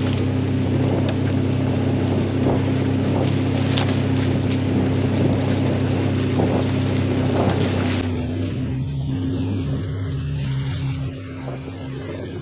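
A vehicle engine running steadily with wind noise on the microphone; about eight seconds in the hiss drops away and the engine hum carries on more quietly.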